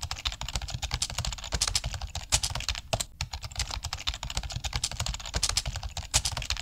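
Fast, irregular clicking of typing on a computer keyboard, starting and stopping abruptly.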